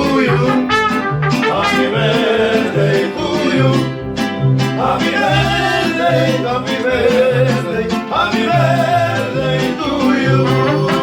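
Mariachi band playing and singing: a sung melody over a repeating bass line.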